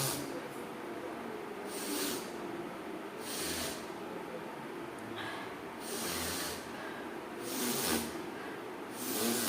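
A person deliberately coughing again and again: about six short, breathy coughs, one every couple of seconds.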